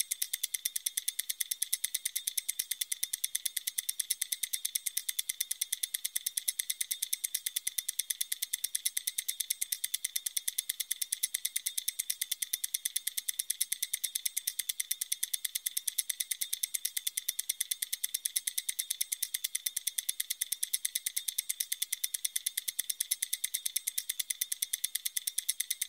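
Mechanical stopwatch ticking: fast, evenly spaced, sharp high-pitched ticks in a steady unbroken rhythm.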